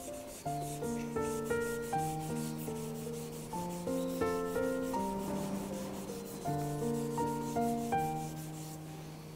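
Santoku kitchen knife stroked back and forth on a wet whetstone in quick, even rasping strokes that stop shortly before the end, under louder background instrumental music made of a melody of short, decaying notes.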